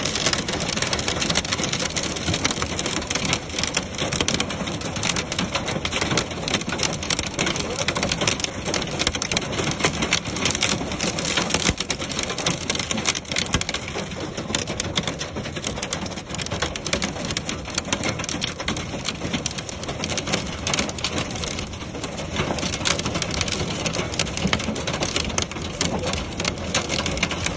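Heavy rain falling hard, a dense steady patter of countless drops hitting a surface.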